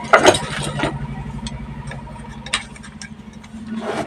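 A steady low, engine-like drone runs on, with sharp clicks and clatter as the TV circuit board and chassis are handled, the loudest clicks near the start and another about two and a half seconds in.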